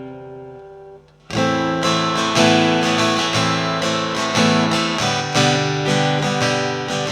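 Sigma GME electro-acoustic guitar being strummed. A chord rings and fades, then stops about a second in. After a short gap, a run of strummed chords keeps going.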